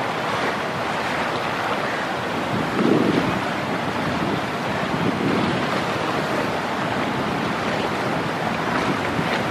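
Rough, choppy river water rushing and splashing, with wind buffeting the microphone; a louder swell about three seconds in.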